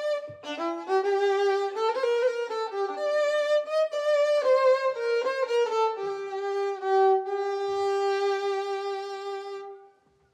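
Background music: a slow melody of sustained notes, likely a violin, that fades out just before the end.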